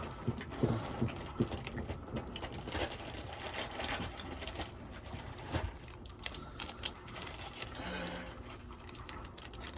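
Crunching and crackling of snacks being eaten and handled: a dense run of small irregular clicks, busiest in the first few seconds.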